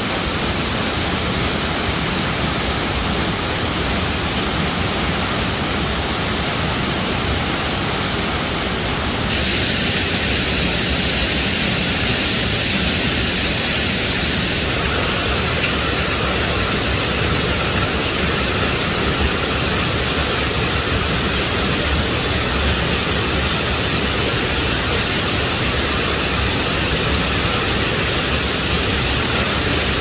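Waterfall: water pouring over rocks in a steady, full rush. The sound changes abruptly about nine seconds in, growing brighter and a little louder, and shifts again about fifteen seconds in.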